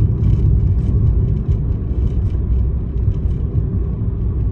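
Car cabin noise while driving: a steady low rumble of road and engine noise heard from inside the car.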